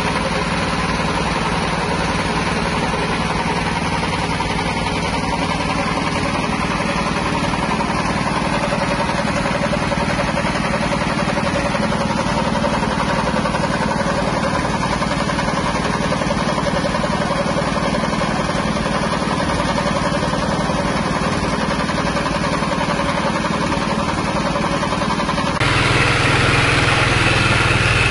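Small 5.5 hp petrol engine running steadily, driving a horizontal feed-pellet mill under load as feed mash goes through it. Near the end the sound changes suddenly to a louder engine drone with a different tone.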